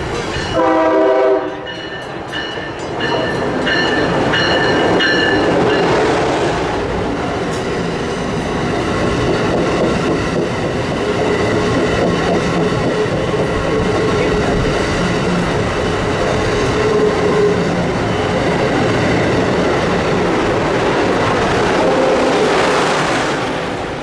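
A passenger train's horn sounds one short blast about a second in, then the train passes with a steady rush of wheel and rail noise.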